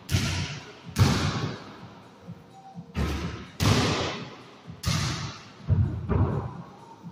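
A basketball thudding against a hard floor, walls and wall-mounted backboards, about seven irregular impacts, each ringing on with a long echo off the bare hard walls.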